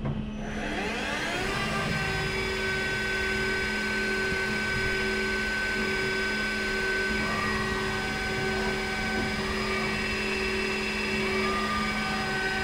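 Colchester Tornado T4 CNC lathe's spindle spinning up, its whine rising in pitch over about the first two seconds, then running steadily at speed with an even whine.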